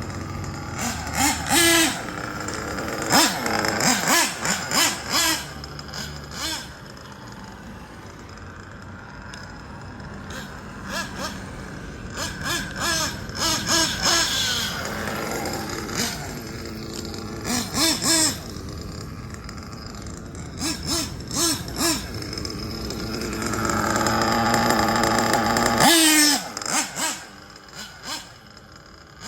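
Kyosho Inferno NEO ST 3.0 nitro RC truggy's small glow-fuel engine revving in repeated high-pitched bursts, rising and falling as the throttle is blipped and released. A long, louder run builds near the end and then cuts off sharply.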